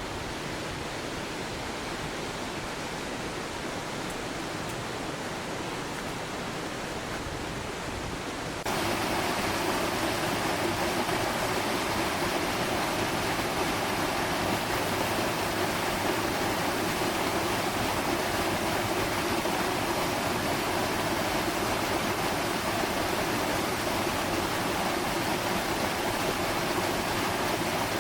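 Mountain stream with a small waterfall, water rushing steadily. About nine seconds in it jumps to a louder, fuller rush, as if from closer to the falling water.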